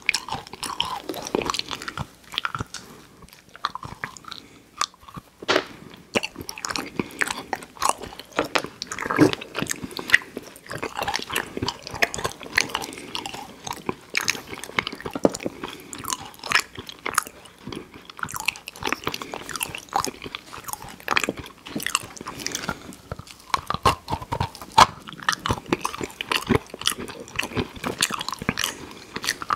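A person biting and chewing candy, a dense run of irregular crunchy clicks with no pause.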